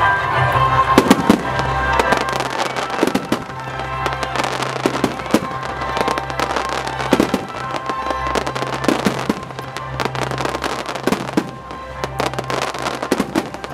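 Fireworks display with shells bursting in rapid, irregular succession, over recorded music played through loudspeakers.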